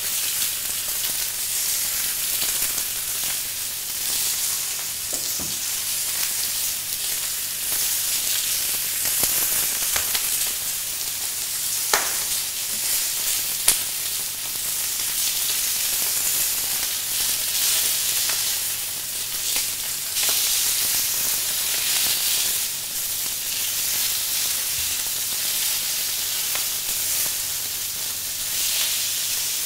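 Salmon steaks sizzling on a hot ribbed grill: a steady hiss, with two brief sharp clicks about halfway through.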